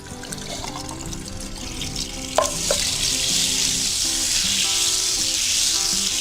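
Butter sizzling as it melts in a hot frying pan, the sizzle swelling louder about two and a half seconds in, right after two sharp metallic clinks.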